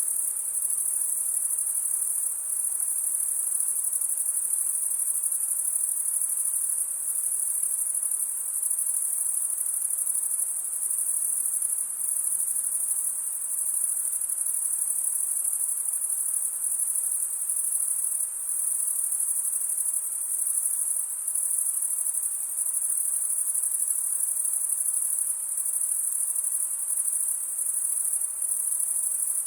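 Summer-night chorus of crickets: a dense, unbroken high-pitched trill that holds steady throughout.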